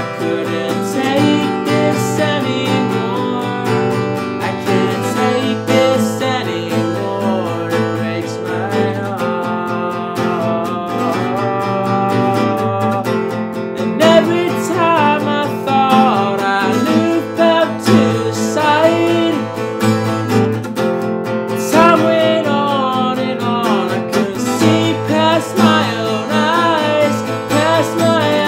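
Acoustic guitar strummed steadily in chords, with a man's singing voice joining about halfway through.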